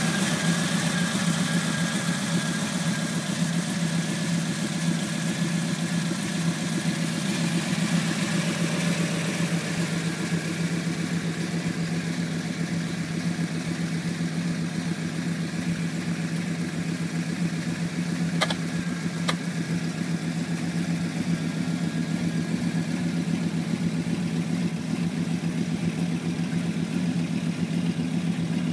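1968 Chevelle Malibu's stack-injected engine idling steadily, with no revving.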